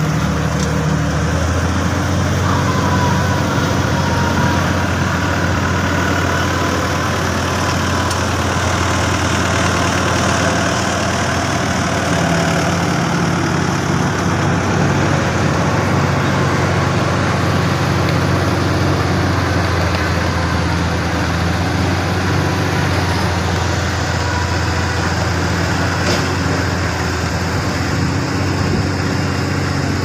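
Heavy diesel engines of road-paving machinery, an asphalt paver and a tandem road roller, running steadily with a continuous low drone.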